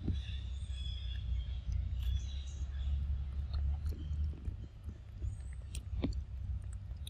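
Macaques chewing and biting soft fruit, a scatter of wet smacks and small clicks over a steady low rumble, with one sharper click about six seconds in.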